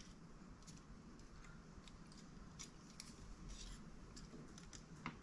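Near silence: a few faint light clicks and taps as the small dashboard part of a model car kit is handled by hand.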